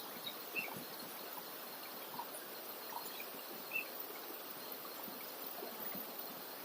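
Faint riverside ambience: a steady even hiss with a few small clicks and two brief faint high chirps, about half a second in and nearly four seconds in.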